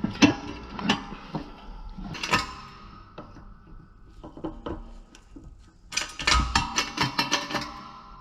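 Metal tools and U-joint parts clinking and knocking, with short ringing after some strikes and a quick run of metallic taps about six seconds in, during fitting of a new U-joint into a PTO shaft yoke.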